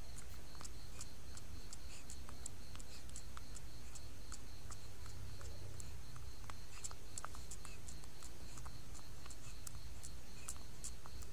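Soft, irregular little clicks of a baby monkey's lips and mouth as it sucks on another monkey's fur in its sleep, as if nursing. Under them run a steady low hum and a faint, steady high-pitched trill.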